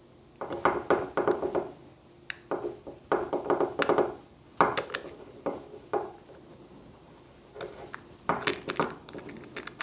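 Steel tweezers and small metal lock parts clicking and clinking against the brass body of a Rosengrens 32A81S disc detainer lock as it is taken apart, in several short bursts of rattling clicks. A retaining ring is prised out of the lock face with the tweezers near the end.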